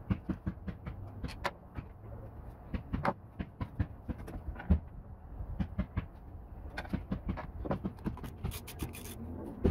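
Irregular clicks, knocks and rubbing from hands working cables, connectors and fuel lines loose inside an outboard motor's plastic lower cowling.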